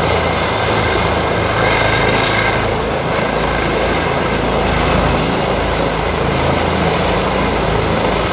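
ADAC rescue helicopter hovering low and setting down on its skids, its rotors and turbine engines running loud and steady.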